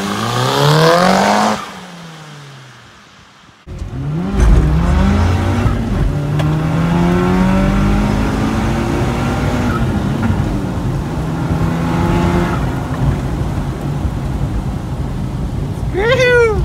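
Turbocharged Audi A4 B7 2.0 TFSI four-cylinder with a big TD05 20G turbo and a stock exhaust, accelerating hard past the listener. Its note rises, then drops and fades away as it passes. Then the same engine is heard from inside the cabin, pulling hard with its pitch climbing in several steps as it goes up through the gears, with a short sharp rising sound near the end.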